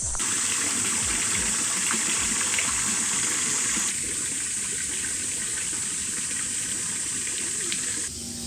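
Steady rushing of running water, with a high, steady insect buzz above it. The sound steps down abruptly about four seconds in and again near the end.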